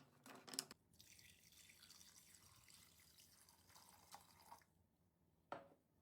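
Quiet kitchen handling sounds: a few light clinks at the start, then a soft pouring hiss for a few seconds, and a single knock near the end.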